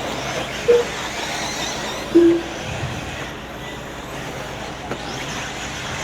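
Electric RC buggies running around a dirt track, heard as a steady noisy wash with faint high motor whines, and two short tones about one and two seconds in.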